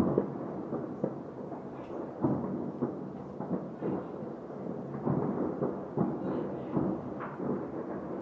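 Distant fireworks going off across a city: many irregular dull booms, several a second, running together into a continuous rumble, with the loudest bang right at the start.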